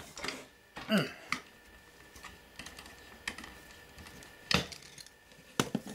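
A screwdriver working small screws on the aluminium plate of a VHS-C tape drive: scattered clicks and taps of metal on metal, the sharpest about four and a half seconds in.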